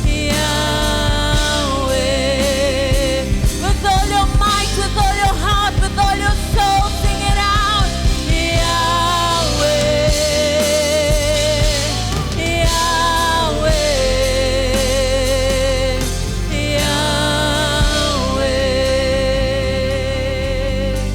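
Gospel worship song: a singer holds long notes with vibrato over steady instrumental accompaniment.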